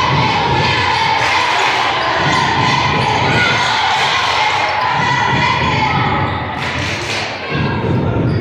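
A basketball game in a gym: the ball bouncing on the court amid a steady mix of voices from players and spectators, echoing in the large hall.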